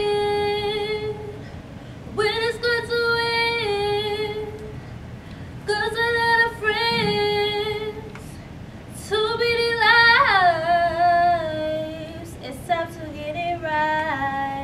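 A girl singing solo in four long phrases of held, wavering notes, with a sweeping downward slide about ten seconds in.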